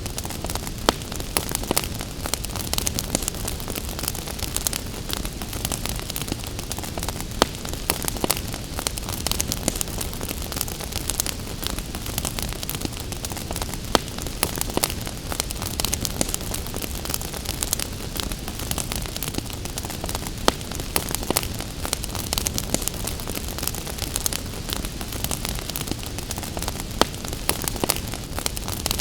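Wood fire crackling in a fireplace, with frequent irregular sharp pops over a steady hiss of gentle rain.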